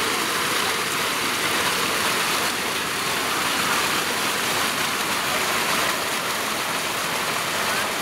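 Steady, even rush of a mountain waterfall.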